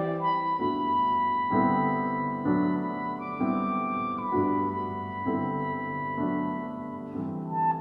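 Slow instrumental music: a long held high note over soft chords that change about once a second.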